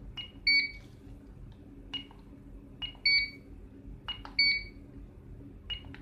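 Soca ST 660S access-control keypad beeping as its buttons are pressed, while it is being programmed into card-only mode 2. There are short key-press beeps about every second, plus three longer, louder two-tone beeps: one about half a second in, then two more around three and four and a half seconds in.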